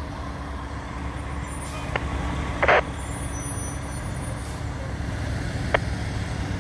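Fire trucks' diesel engines idling with a steady low rumble, broken by one short sharp noise a little under three seconds in and a faint click near the end.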